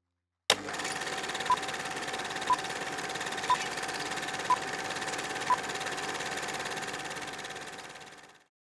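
Film-leader countdown sound effect: an old film projector starts with a sharp click and runs with a steady hum and rapid clatter, while five short beeps sound one a second, then the whole sound fades out.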